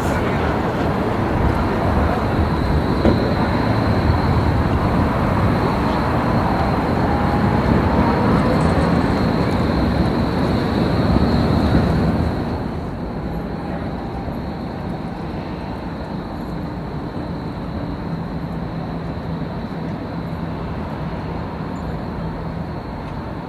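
City-square traffic ambience. A vehicle passes with a broad rumble and a faint gliding whine, and the noise drops off suddenly about halfway through. A thin, steady high tone runs underneath throughout.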